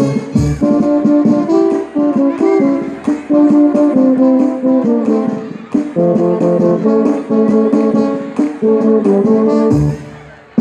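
Marinera norteña music from a brass band, a melody of held brass notes over a regular beat; it fades down near the end.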